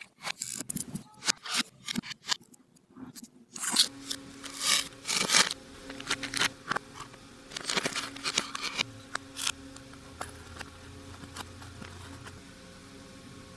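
Handling noises from an Erector construction-set kit: quick clicks, crinkles and scrapes of plastic parts bags, small metal pieces and a cardboard box being moved about. They are busiest in the first nine seconds, and a faint steady low hum runs under them from about four seconds in.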